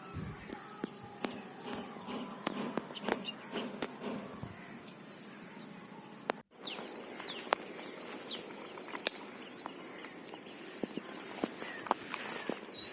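Outdoor ambience of insects such as crickets trilling in two steady high tones, with scattered small clicks and rustles in the grass. The sound cuts out for an instant about halfway through.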